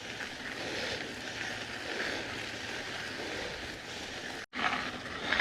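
Steady background hiss of outdoor ambience with no distinct events. It cuts out completely for an instant about four and a half seconds in.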